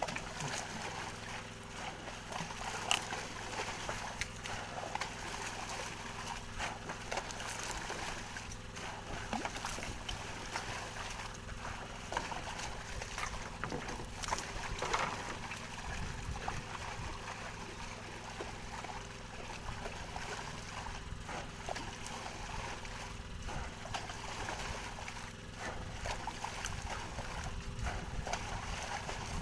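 Water splashing and sloshing as squid thrash at the surface and are scooped out with a hand net, with scattered small splashes throughout. A steady low hum runs underneath.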